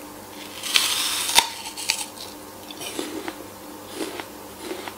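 A crisp red apple bitten into with a loud crunch about a second in, followed by smaller crunches as the mouthful is chewed.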